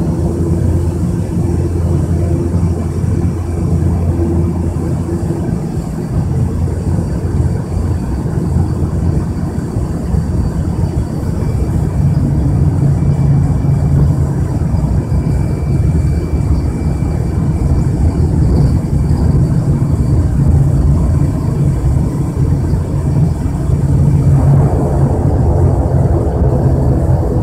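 ATR 72-500 turboprop engine and propeller running at low power while the aircraft moves on the ground, heard inside the cabin beside the propeller. It is a steady, loud drone with a low hum whose tone shifts several times, taking on a fuller, brighter edge about three seconds before the end.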